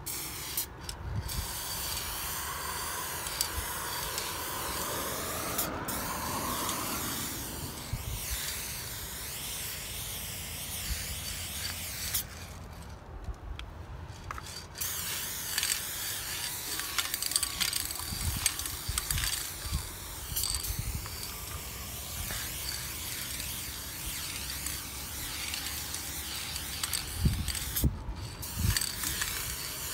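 Aerosol spray-paint can hissing as it sprays paint onto a wall in long steady bursts, broken by short pauses, one of them about two seconds long. A few dull knocks near the end.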